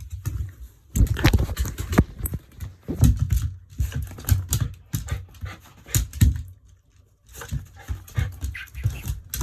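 Shiba Inu panting in irregular bursts of breath.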